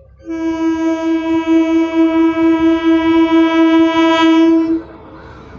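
Horn of an approaching electric multiple unit (EMU) local train sounding one long, steady blast of about four and a half seconds that cuts off sharply, leaving the low rumble of the oncoming train.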